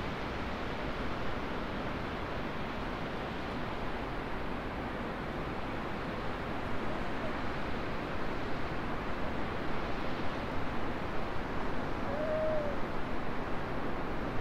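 Steady rushing noise that grows louder and gustier in the second half, with one short hooting note about twelve seconds in.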